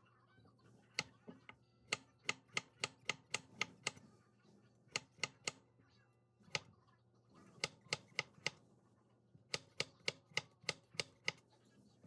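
Chef's knife slicing a cucumber into thin rounds on a bamboo cutting board: quick runs of sharp knocks as the blade strikes the board, about five or six a second, with short pauses between the runs.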